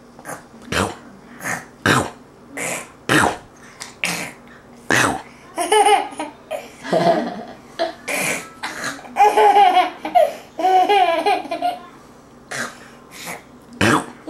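A young child making a string of short, breathy funny noises at a quick, uneven pace, then high-pitched laughter from about halfway in.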